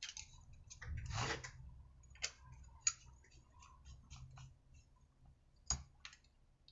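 Light clicks and ticks of a T-handle hex key turning screws by hand into a small two-stroke engine's crankcase, starting the screws before they are tightened. There is a longer scrape about a second in, then a few sharp single ticks.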